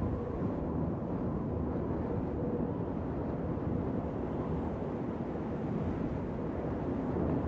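Wind blowing: a steady, low, rumbling rush with no separate events.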